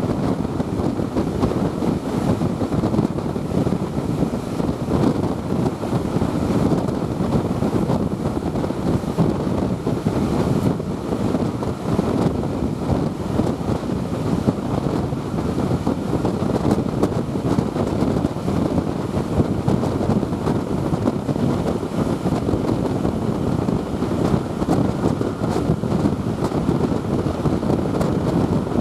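Wind rushing over a microphone held out of a passenger train's window at speed, over the train's steady running noise. Steady throughout, with no single knock or horn standing out.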